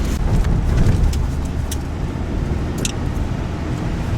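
Steady low rumble of a car's engine and tyres heard from inside the cabin while driving, with a few short sharp clicks.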